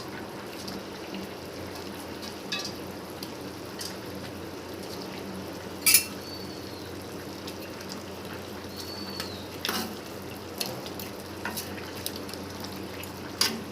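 Cauliflower and fish curry sizzling steadily in the pan, with a few sharp clinks of a utensil against the pot, the loudest about six seconds in.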